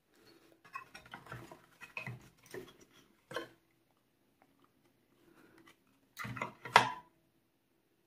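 Hard plastic parts of a Roborock S6 MaxV's fan unit being handled and pulled apart: a run of small clicks, knocks and scrapes over the first three and a half seconds, then a louder clatter about six seconds in that ends in one sharp clack.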